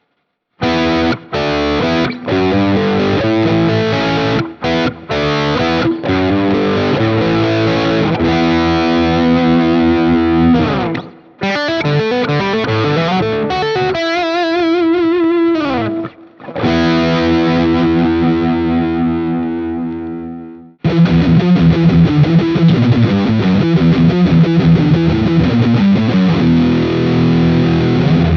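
Electric guitar, a Thinline Telecaster, played through overdrive and effects: chords and single-note lines with a few short breaks. About halfway through, one note wavers in pitch and then slides down.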